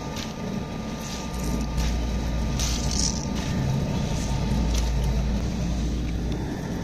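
Radish being grated on a stainless-steel box grater: short rasping strokes at an uneven pace. Under them a low rumble swells from about a second in and fades near the end.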